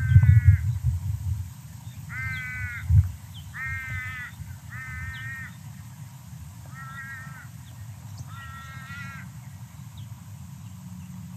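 Crow (Australian corvid) cawing: six drawn-out, harsh calls spaced a second or two apart, over a low rumble on the microphone.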